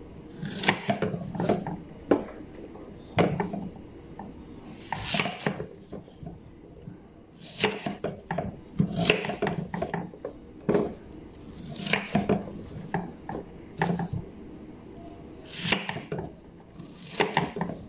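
Kitchen knife cutting a red onion on a wooden cutting board. The blade crunches through the onion and knocks against the board in runs of quick cuts, with short pauses between runs every second or two.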